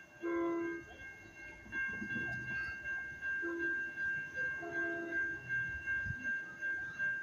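Horn of an approaching NJ Transit PL42AC diesel locomotive sounding three blasts: a first about half a second long, a short one about three seconds later, then a longer one. Under them a steady high ringing pulses about twice a second.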